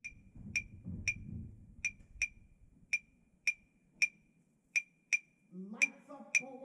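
Claves struck in a syncopated rhythm, about a dozen sharp, high wooden clicks with a short ring. Near the end the pit band comes in with sustained chords under them.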